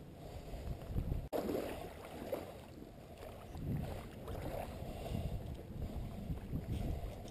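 Wind rumbling on the microphone, with water sloshing around a wading angler's legs; the sound drops out briefly about a second in.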